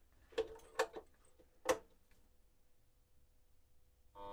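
Four sharp clicks from the mini metal lathe's control panel switches as the machine is switched on. Just before the end its motor starts running with a steady, many-toned hum and whine.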